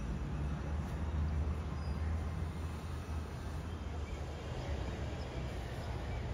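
Steady low rumble of outdoor background noise, with no clear separate events.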